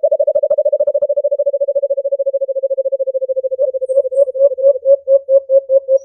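White-eared brown dove calling: a long, rapid run of short, low cooing notes at a steady pitch, slowing to separate notes at about three a second in the last two seconds. A recorded lure call used to draw the bird in.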